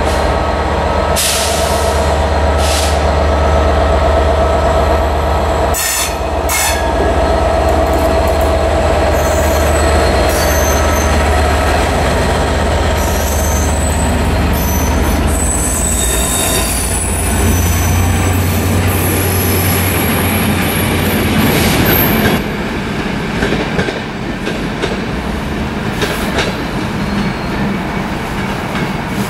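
A Class 67 diesel locomotive's two-stroke V12 engine drones as it passes, hauling a rake of coaches that click over the rail joints. Thin, high wheel squeal comes in midway. The sound drops away after about 22 seconds as the train moves off.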